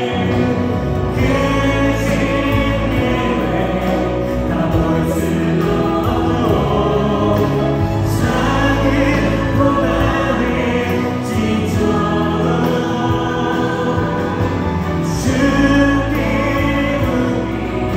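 Praise team of women and men singing a Korean worship song together into microphones, backed by a live band with keyboard and guitar, amplified through the church PA.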